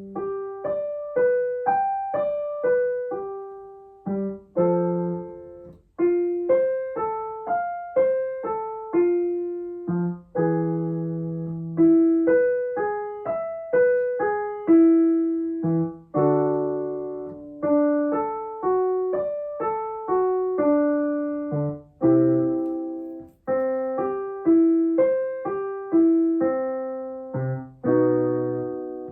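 Piano playing a vocal warm-up arpeggio (1-5-3-8-5-3-1) over a bass note, each repeat of the pattern a step lower in key as the exercise comes back down.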